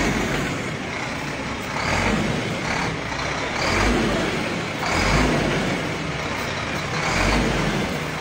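Shacman H3000 tanker truck's diesel engine running as the truck moves slowly, a steady deep rumble that swells and eases about once a second.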